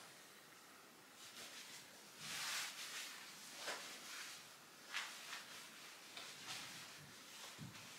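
Soft rustling of clothing fabric as a top is tucked into jeans and smoothed down, in several short swishes. The longest swish comes about two and a half seconds in.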